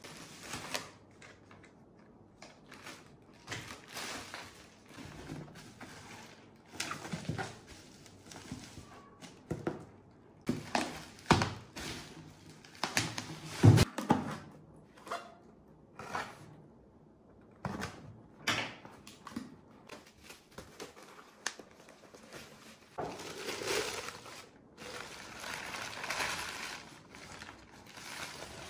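Cardboard parcels being handled and opened on a wooden table: box flaps and packing scraping and knocking, a blade slitting packing tape, and crumpled kraft paper rustling. The loudest sound is a single sharp knock about halfway through; a longer stretch of paper rustling comes near the end.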